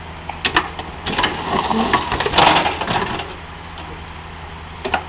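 Excavator engine running steadily under scattered sharp clicks and a stretch of crunching, creaking sheet metal from about a second in to past three seconds, as the excavator's bucket and thumb work over an old Dodge car body.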